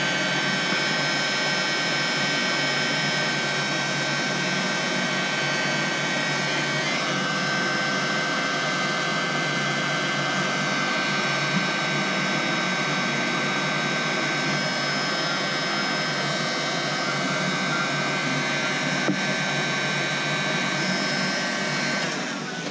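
Electric heat gun running steadily, a blower whoosh with a steady whine, shrinking heat-shrink tubing over crimped wire connectors. It switches off near the end.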